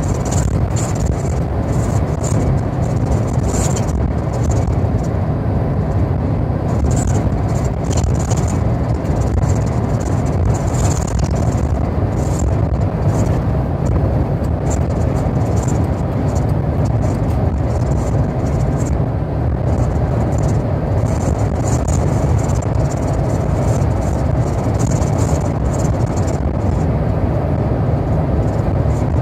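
Steady low rumble of vehicle road noise, with a faint high hiss that flickers on and off.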